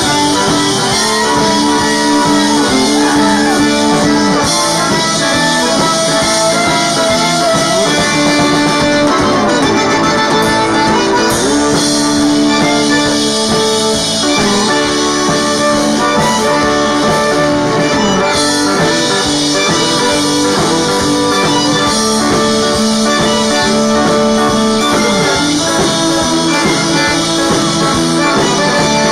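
Cajun band playing an instrumental passage: a diatonic Cajun accordion leads over strummed acoustic guitar and steel guitar, with notes that glide in places.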